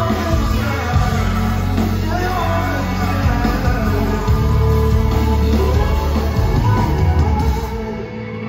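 Live rock band with electric guitar, heavy bass and drums and singing, heard through the crowd on a phone recording. This is the close of the song: the bass and drums drop out near the end, leaving a thinner sound.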